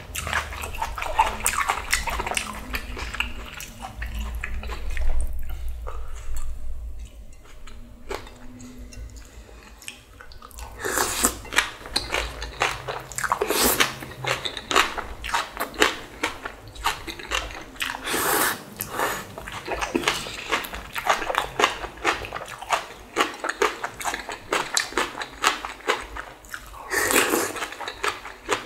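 Close-miked eating of instant ramen noodles with bean sprouts: several long slurps of noodles, with wet chewing and crunching between them.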